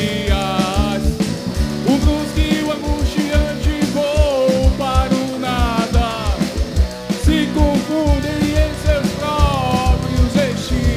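Rock song playing: a steady kick-drum beat under bass and electric guitar, with a melodic line that bends in pitch above them.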